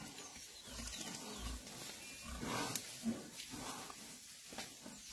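Lionesses growling faintly as they close on a wounded Cape buffalo, over a quiet rustle, with two soft low thumps in the first second and a half.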